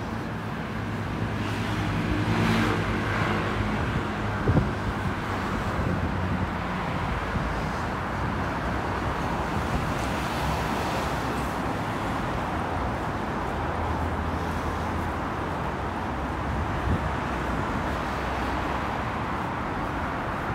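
City street traffic noise: steady road hum, with a vehicle engine heard running in the first few seconds and again past the middle. A single sharp knock about four and a half seconds in.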